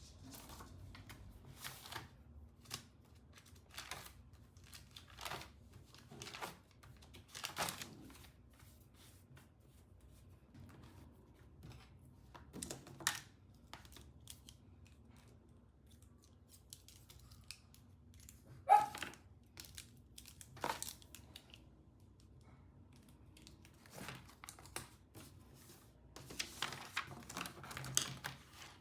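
Things handled at a desk: scattered, irregular rustles, taps and clicks, with paper among them, and one louder sharp knock about two-thirds of the way through.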